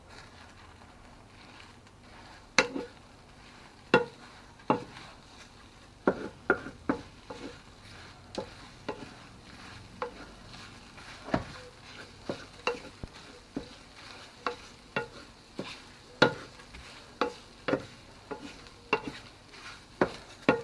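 Eggs sizzling faintly in a copper stone frying pan while a utensil stirs them, knocking and scraping against the pan in sharp, irregular clacks about once a second from a couple of seconds in.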